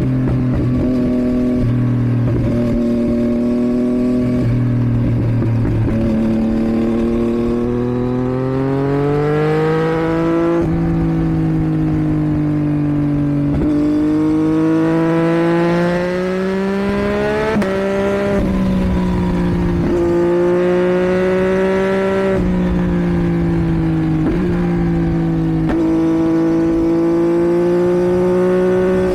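2022 Yamaha MT-09's 890 cc inline-three engine through a Roadsitalia catalysed exhaust, under way. Its revs climb in long pulls with sudden drops at each upshift. The revs then settle at a fairly steady pitch, broken by a couple of brief dips.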